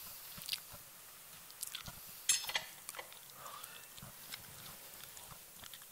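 Two 17 mm wrenches working the front axle nut of a Yamaha Majesty 125 scooter: scattered light clicks and scrapes of the tools, with a louder clatter a little over two seconds in.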